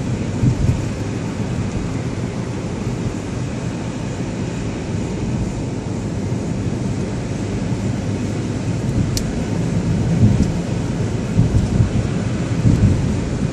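Car driving on a snow-covered road: a steady low rumble of engine, tyres and road noise, with a few louder low thumps near the end.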